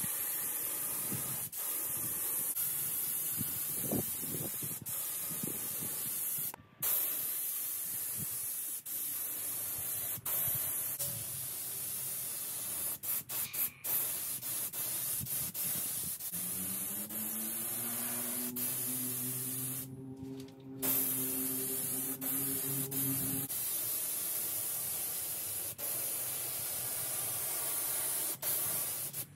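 Air-fed paint spray gun hissing steadily as it sprays a steel frame, the hiss breaking off briefly a few times when the trigger is released. For several seconds in the middle a low hum, rising slightly in pitch, runs under the hiss.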